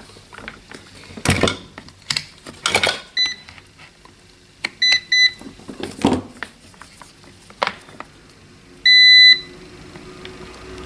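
Multimeter continuity beeper sounding in a few short chirps as the probes make and break contact, then one longer, loud beep about nine seconds in, the meter's signal of an unbroken circuit. Sharp clicks and knocks of probes and handling come in between.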